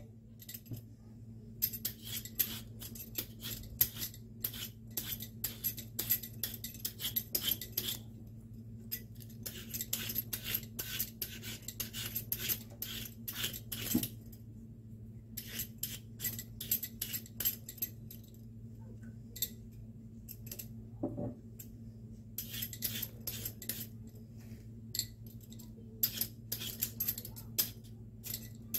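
Metal Y-shaped vegetable peeler scraping the green skin off a watermelon rind in quick repeated strokes, in runs of a few seconds with short pauses between. A low steady hum underneath.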